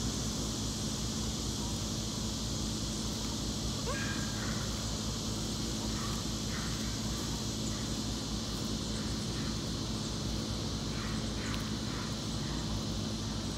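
Outdoor ambience: a steady high insect drone over a low hum, with a few faint bird chirps, one about four seconds in.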